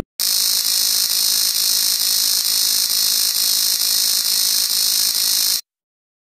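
Film-countdown-leader sound effect: a steady, harsh electronic buzzing tone with faint ticks about twice a second, cutting off suddenly about five and a half seconds in.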